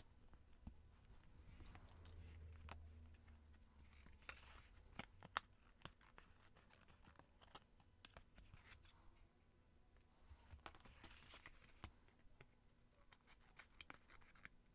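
Faint paper sounds: a paper cutout and journal pages being handled and pressed down, then trimmed with scissors. Short sharp clicks are scattered through it, and two stretches of rustling come about four and eleven seconds in.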